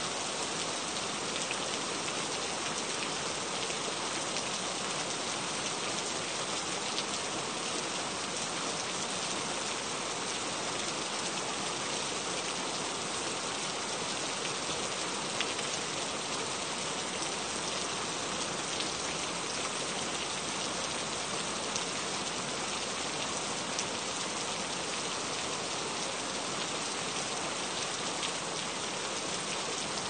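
Heavy rain falling steadily: a dense, even hiss with scattered sharper drop hits.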